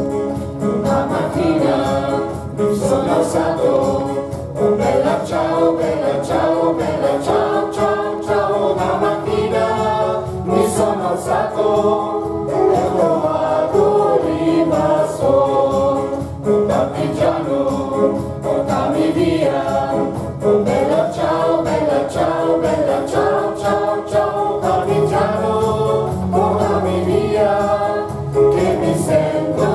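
Small mixed choir of men and women singing together, accompanied by an electronic keyboard.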